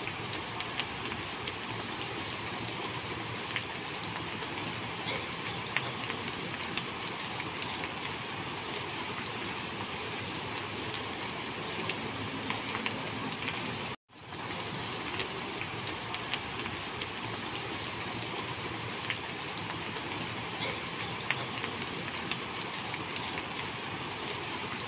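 Minced pork and sator beans sizzling in a hot wok, with a metal spatula stirring and giving small scraping clicks against the pan. The sizzle cuts out abruptly for a moment about halfway through, then carries on.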